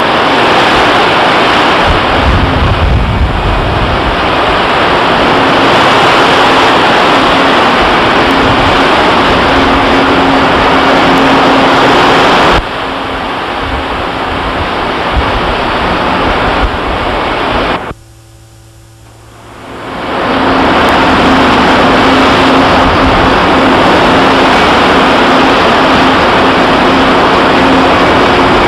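Loud steady rush of wind and churning sea water alongside a ship under way, with a faint steady hum underneath. The noise drops suddenly a little under halfway through, cuts out almost completely for about two seconds about two-thirds of the way in, then comes back at full level.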